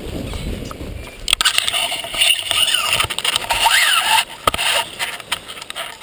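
Wind rumbling on the microphone as the paraglider touches down on grass. About a second in, this gives way to rustling, clicking handling noise as the pilot gathers the paraglider's risers and lines.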